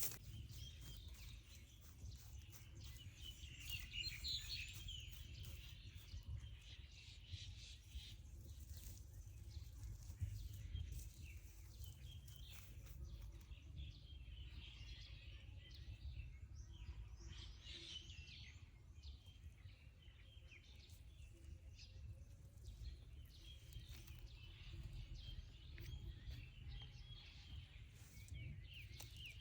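Faint outdoor ambience: small birds chirping and twittering in scattered bursts, over a steady low rumble.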